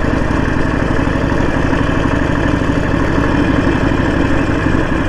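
Harley-Davidson Sportster 1200's air-cooled V-twin engine idling steadily.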